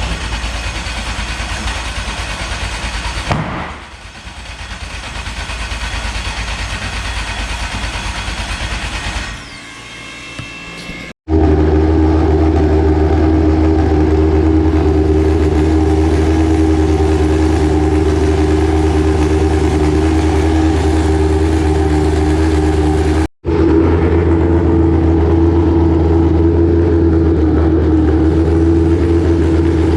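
A car engine running at a steady speed, loud and even, from about eleven seconds in, with two abrupt cuts in the sound. Before that there is a quieter mechanical whirring.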